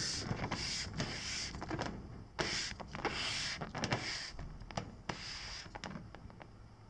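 A hand turning an Arai full-face motorcycle helmet on a tabletop: several short rubbing, scraping sounds with a few light clicks, growing fainter toward the end.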